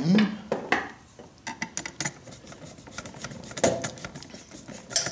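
Irregular light metallic clicks and clinks of hands fitting stranded ground wires under the ground screw terminal of a generator's twist-lock outlet, with one sharper click about two-thirds of the way in.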